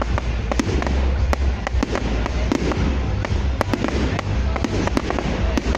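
Fireworks going off: a fast, irregular run of sharp bangs and crackles, several a second, over a steady low rumble.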